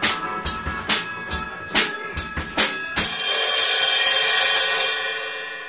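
Acoustic drum kit played in a steady beat, with drum strokes about two or three times a second. About three seconds in, a loud cymbal crash sets off a bright, sustained cymbal wash that begins to fade near the end.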